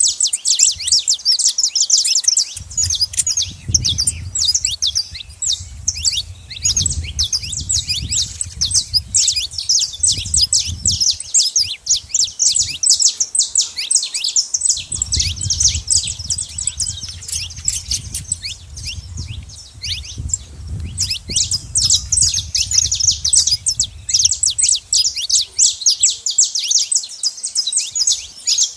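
Saffron finches (canário-da-terra) chirping in a dense, unbroken run of rapid high calls. A low rumble runs under them for two long stretches.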